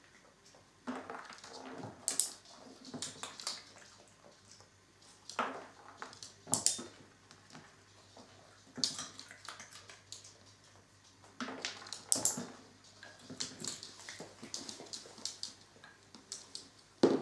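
Irregular rustling with light clicks and taps, from treats being handled and a small puppy moving about a plastic pet carrier on a wooden floor.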